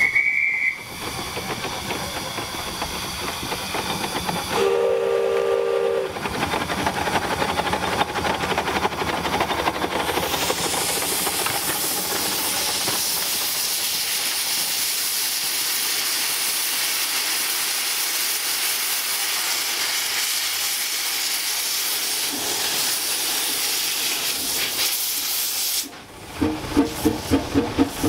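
Narrow-gauge steam locomotive with a long hiss of steam from its open cylinder drain cocks, a short high steam whistle at the very start and a lower whistle with several notes about five seconds in. Near the end the locomotive moves off with sharp exhaust beats, about three a second.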